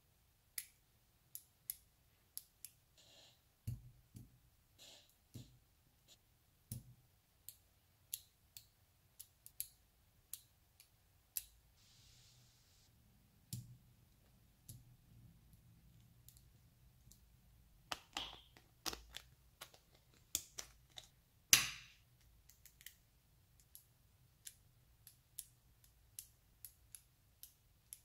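Small neodymium magnetic balls clicking as rods of balls are snapped onto and pulled from the ball clusters of a magnetic sculpture: a scattered series of sharp clicks, with a denser run of clicking and rattling past the middle, loudest about three quarters through.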